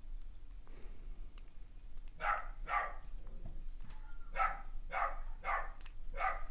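A dog barking in six short barks: two about two seconds in, then four more from about four and a half seconds.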